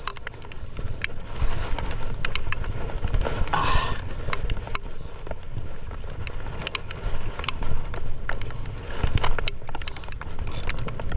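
Steady low wind and water rumble on a small fishing boat at sea, with many scattered sharp clicks and knocks from the fishing gear and a short hiss about three and a half seconds in.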